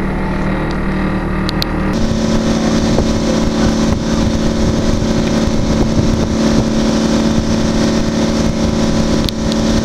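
The MS Ariadne's engine running steadily as the boat cruises, an even hum with a rush of wind and water over it. The sound changes abruptly about two seconds in, the rush growing stronger.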